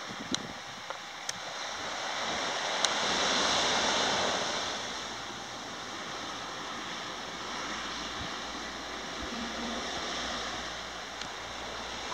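Small waves washing up onto a sandy beach, a steady hiss of surf that swells once about three to four seconds in.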